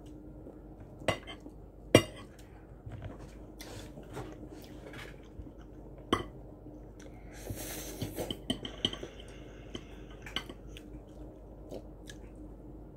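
A fork and chopsticks clinking and scraping against plates of noodles, with a few sharp clinks, the loudest about two seconds in, over a faint steady hum.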